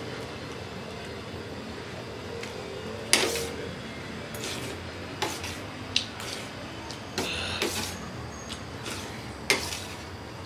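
Eating from a steel plate of rice: several sharp clicks and clinks, the loudest about three seconds in and another near the end, over a steady background hum.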